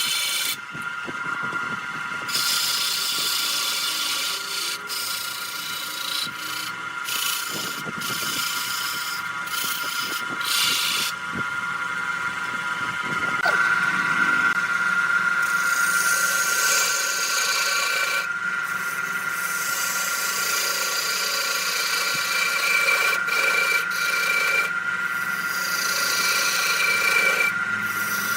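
Wood lathe running with a steady motor whine while a turning tool cuts the spinning wood, in repeated bursts of scraping and shaving that start and stop.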